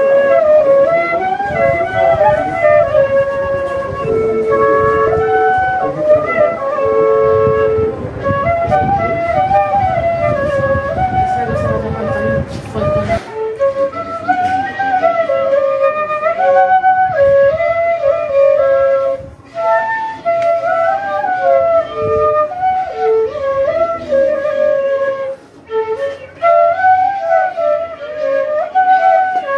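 Cane fifes (pífanos) of a banda de pífano playing a quick, lilting melody. A dense low drum accompaniment stops abruptly about halfway through, leaving the fifes playing on alone.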